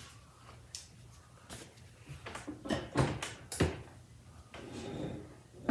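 A series of light clicks and knocks from handling a heat press and its garment, with a brief rustle about five seconds in and a sharper knock at the very end.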